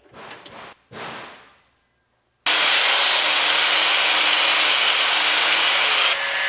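Angle grinder with a wire cup brush scouring rust off a tractor's steel frame: a steady, harsh scrubbing noise over the hum of the motor. It starts abruptly about two and a half seconds in and gets brighter near the end. Before it come a few light knocks.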